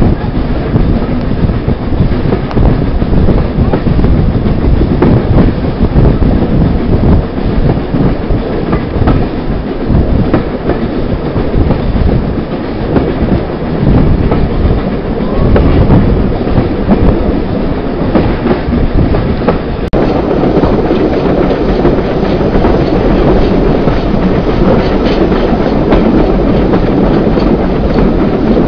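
Steam train running, heard from a carriage window: a continuous rumble of the moving train, with the wheels clattering over the rail joints.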